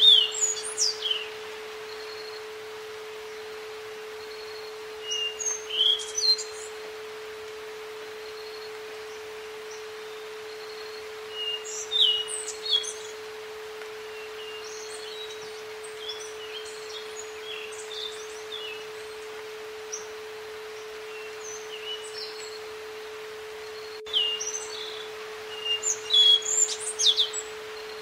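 A steady electronic tone just under 500 Hz holds unbroken throughout, over a soft outdoor hiss. Wild birds chirp and call over it in four short clusters: right at the start, around five to six seconds in, around twelve seconds, and through most of the last four seconds.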